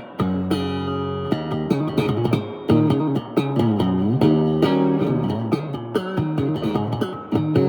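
Fernandes TEJ-70 electric guitar played on its own: a chord rings for about a second, then single-note phrases follow, with string bends in the middle.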